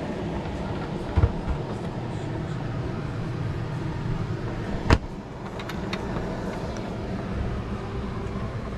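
Motorhome refrigerator doors being opened: a low clunk about a second in as the freezer door is unlatched, then a sharp click near the middle as the fridge door latch releases, with a few small ticks after it. A steady low hum runs underneath.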